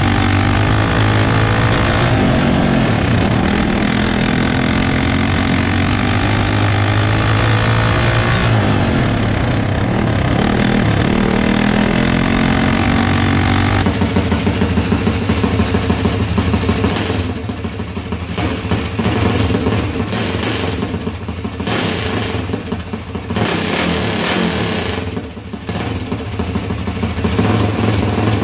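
High-compression, hot-cammed Harbor Freight Predator 212 single-cylinder four-stroke go-kart engine running hard, its pitch rising and falling with the throttle. About halfway through the sound changes to a steadier, lower engine note that dips briefly several times.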